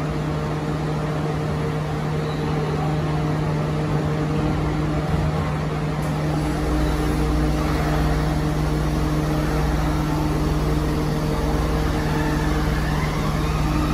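Yokohama Municipal Subway Green Line 10000-series linear-motor train standing at the platform with a steady electrical hum. Near the end a rising whine comes in as it starts to pull away.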